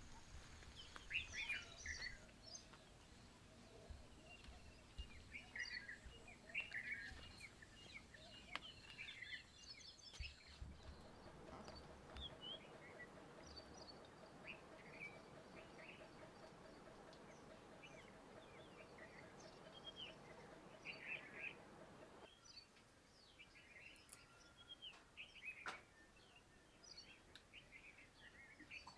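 Faint chirps and short calls of several small birds, scattered throughout. A faint steady hiss sits underneath for about ten seconds in the middle.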